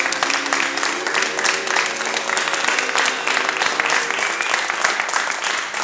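A small group of people clapping, a dense, irregular patter of hand claps with voices over it.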